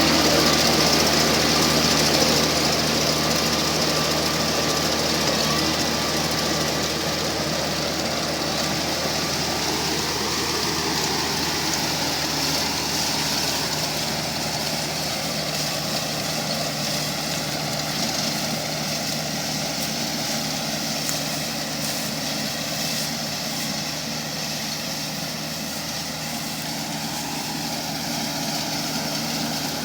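Kubota R1-301 combine harvester's diesel engine running steadily, gradually getting quieter.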